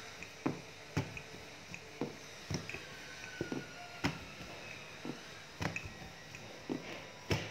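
Pizza dough being rolled out with a wooden rolling pin on a tabletop: irregular soft knocks and thuds as the pin rolls and bumps the table and the dough is lifted and turned, with the loudest knock near the end.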